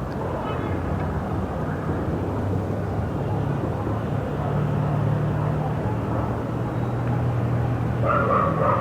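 City ambience with a steady low hum; a dog starts barking near the end.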